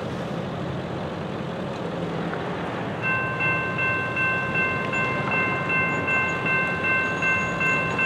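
Railroad grade-crossing warning bell starting to ring about three seconds in, repeating about twice a second, over a steady hiss of road traffic. Its ringing means the crossing signals have been activated by an approaching train.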